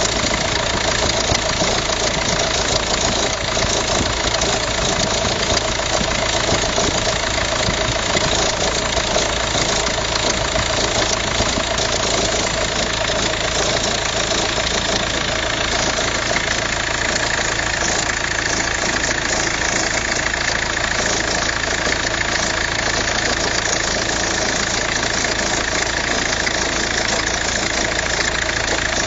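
Volkswagen Passat engine idling steadily, with the abnormal belt noise that is the fault being shown. A higher-pitched tone grows stronger about halfway through.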